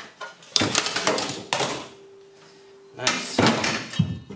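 Aluminum angle framing and a metal hatch panel clattering and scraping as they are set down on an aluminum jon boat, in two spells of handling with sharp knocks. Between them a short steady ringing note, and one sharp knock about four seconds in.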